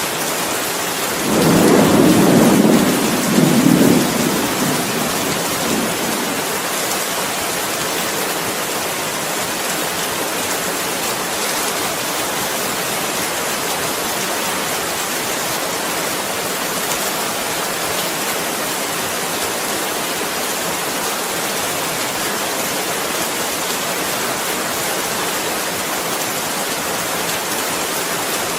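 Steady rain falling, with a roll of thunder about a second in that swells twice and fades out by about six seconds.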